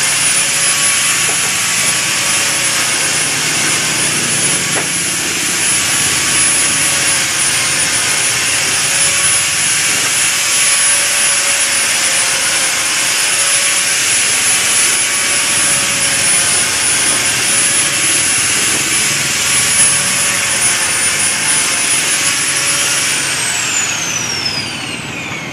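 Electric woodworking machine running steadily under its motor's high whine, then switched off, the whine falling as it spins down near the end.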